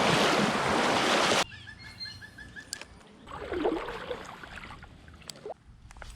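Creek water rushing loudly, cut off abruptly about a second and a half in. After that, quieter water with a short run of quick, evenly spaced high chirps, a brief slosh of water, and a few sharp clicks.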